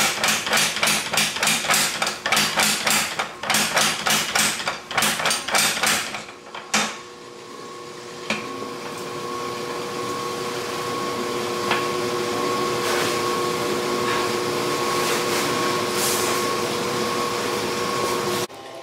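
Hand hammer striking steel on an anvil in quick runs of blows, about three or four a second, during forging of an axe head; the hammering stops about six seconds in. A steady hum with a faint whine then runs until it cuts off just before the end.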